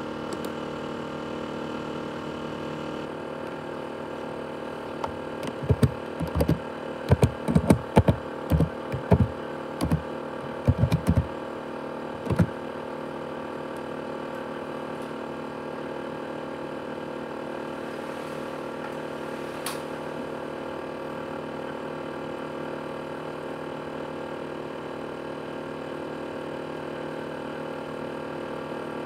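ASUS X543UA laptop's CPU cooling fan running steadily with a whine made of several fixed tones, a noise the owner likens to a jet engine. From about five seconds in to about twelve, a string of sharp knocks and clicks sounds over it.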